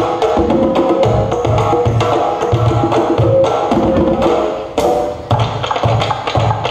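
Dance music with a steady, quick drum beat and percussive clicks under a melody; the music dips briefly and comes back with a sudden hit about five seconds in.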